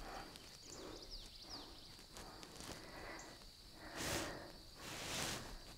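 A person breathing hard while holding and bouncing in a deep squat, with two louder breaths about a second apart near the end, over faint room noise and a steady high whine.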